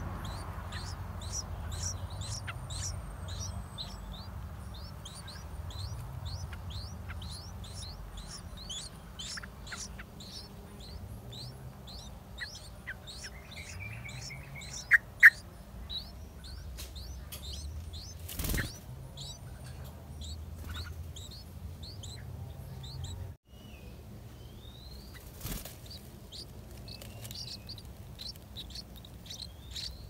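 Yellow-vented bulbul nestlings begging at the nest: a fast, steady stream of thin, high chirps, several a second. Two louder, sharper calls come about halfway through, over a low background rumble.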